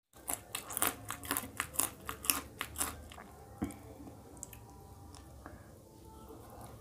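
A person biting and chewing a raw green chili close to the microphone: a quick run of crisp crunches, about four a second, for the first three seconds, then softer chewing.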